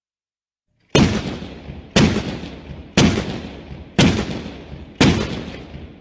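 Tank cannon shots, a sound effect: five sharp blasts about a second apart, starting about a second in, each trailing off before the next.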